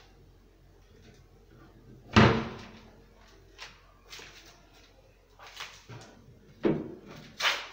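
Kitchen cabinet doors of HDF board being opened and shut. A loud bang comes about two seconds in, then several lighter knocks, and two more strong thuds near the end.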